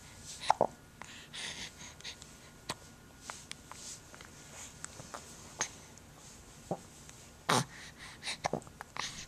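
A person hiccuping: two sharp hiccups, one about half a second in and one about seven and a half seconds in, with a few softer hiccup-like catches near the end.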